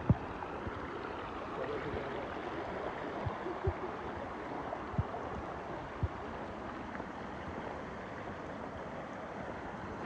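Shallow creek rippling over rock ledges: a steady rush of running water. A few soft, low thumps come through in the middle.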